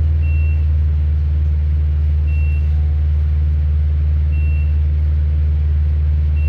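Steady low hum of a tram standing at a stop, heard from inside the car, with a short high beep repeating about every two seconds.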